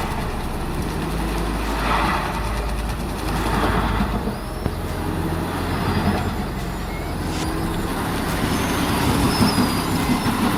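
Heavy diesel land-clearing machinery running under load: a steady low engine drone with dense mechanical noise, swelling in a few surges.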